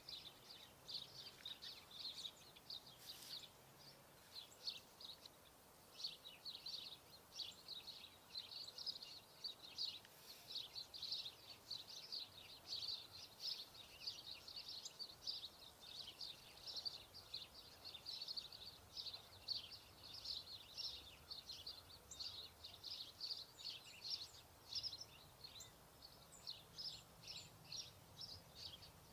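Small birds chirping: many short, high chirps, irregular and almost unbroken, over faint outdoor background noise.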